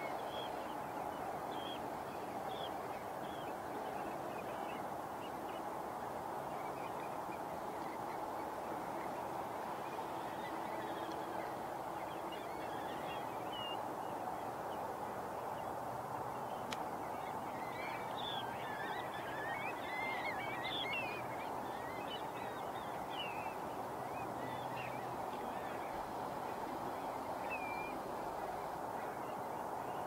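Mixed flocks of migratory water birds calling as they fly over the bay: many short, wavering calls over a steady wash of background noise, busiest about two-thirds of the way through.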